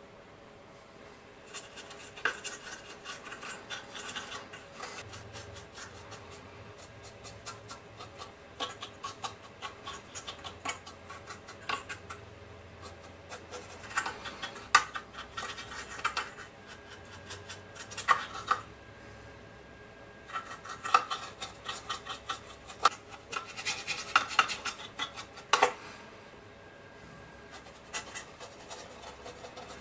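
Paintbrush scratching and stippling dry weathering pigment onto a plastic model tank's hull, in irregular bursts of fine scratchy clicks with short pauses between them.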